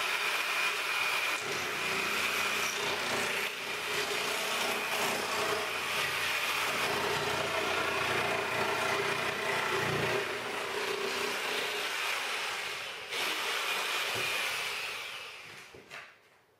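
Electric jigsaw running with a steady whine, cutting a circle through plywood on a pivoting circle-cutting jig. The sound dips briefly partway through, then winds down and stops near the end as the circle is cut free.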